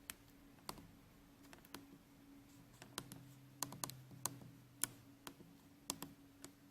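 A series of about a dozen irregular sharp clicks, bunched toward the middle, over a faint steady low hum.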